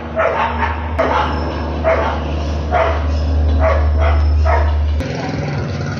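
A dog barking repeatedly, about one bark a second, over a steady low hum that stops about five seconds in.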